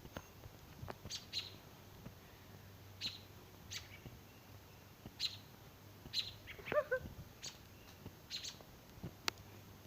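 Small birds squabbling near their nest: short, high chirps scattered at irregular intervals, with a lower, bending call about two-thirds of the way through.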